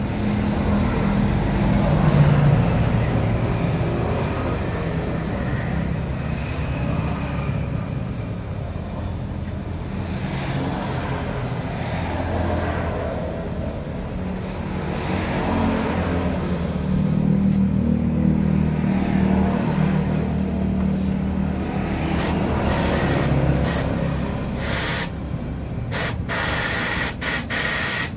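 An engine running, its pitch rising and falling, with a few short sharp bursts near the end.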